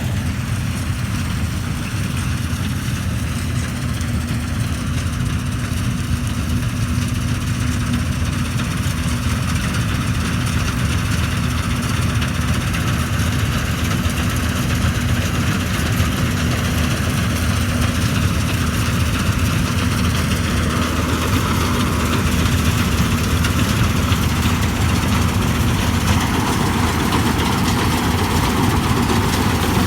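Vishal combine harvester running steadily while harvesting guar: a continuous engine drone with machinery noise over it, growing a little louder in the second half.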